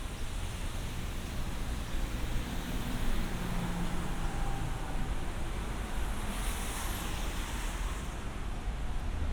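City street traffic: a steady wash of engines and tyres hissing on wet pavement, with a louder hiss swelling briefly about six to seven seconds in.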